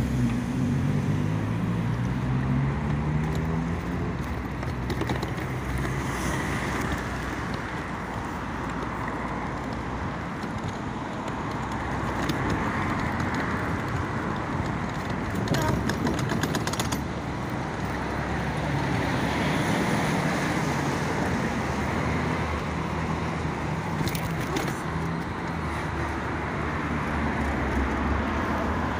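Road traffic: a car engine speeding up and pulling away with a rising pitch in the first few seconds, then a steady rush of passing traffic and tyre noise.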